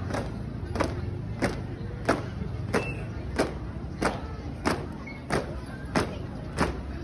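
A marching squad's shoes stamping in unison on paving, in a steady beat of about three stamps every two seconds.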